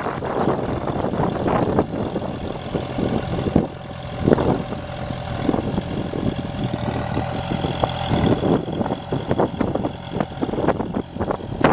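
Vermeer RT650 trencher's 76 hp Deutz diesel engine running steadily at idle.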